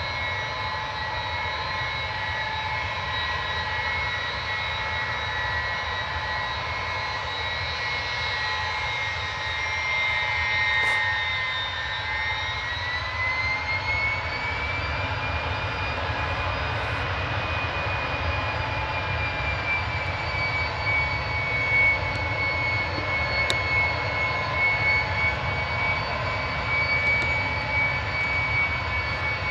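Ilyushin Il-76's four Soloviev D-30KP turbofans running at a ground engine run-up: a steady jet rumble with a high whine that climbs in pitch about twelve seconds in as the engines spool up, then holds.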